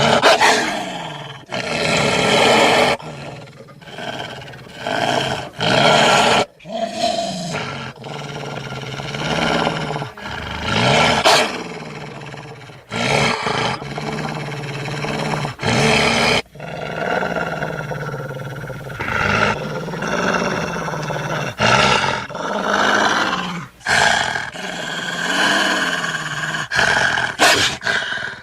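Sound-designed wolf creature effects for the extinct Hokkaido wolf: a run of growls, snarls and roaring calls whose pitch bends up and down, cut together one after another with abrupt breaks every second or few.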